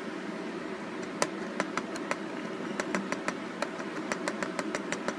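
A steady low hum with a run of sharp clicks over it: a few spaced clicks from about a second in, then several a second from about three seconds in.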